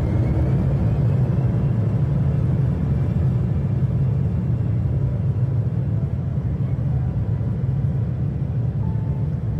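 Cabin noise inside an Embraer 190 jet rolling on the ground: a steady low rumble from its turbofan engines and wheels.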